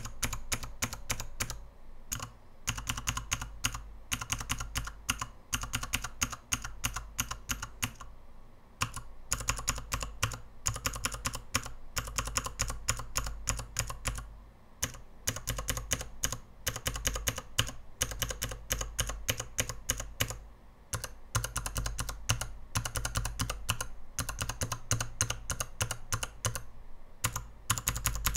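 Mechanical keyboard switches on a KBDfans 72-switch tester with XDA keycaps on an acrylic base, typed in fast clacking runs. There is a brief pause roughly every six seconds.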